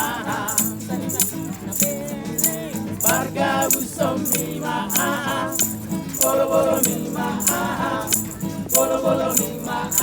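A Batak pop-rap song: a voice singing in phrases over steady accompaniment, with a shaker-like rattle ticking a regular beat.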